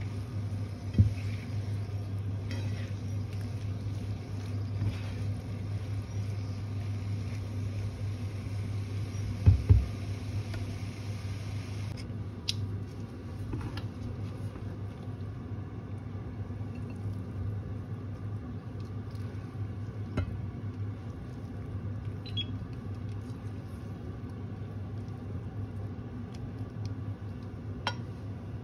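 Stir fry of noodles and vegetables sizzling in a non-stick frying pan as it is tossed, with a couple of low thumps from the pan about nine seconds in. After about twelve seconds the sizzle stops, leaving a steady low hum with a few light clicks.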